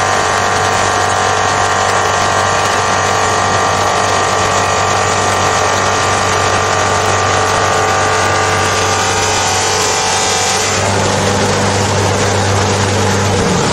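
Copper cylinder polishing machine running: its high-speed motor and polishing wheel working on a turning gravure copper cylinder, a steady hum with a whine above it. About eleven seconds in, the whine fades and the low hum comes up stronger.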